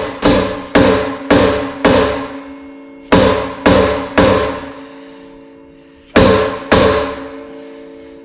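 Dead blow hammer striking a stuck motor pulley on an air compressor, about ten blows in groups of four, three and two, each leaving a metallic ring that dies away. The pulley is not coming free off the motor shaft.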